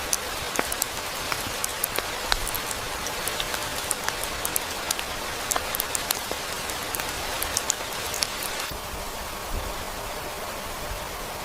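Rain falling, a steady hiss with many sharp drop ticks. About three-quarters of the way through the ticks stop and only a softer steady hiss remains.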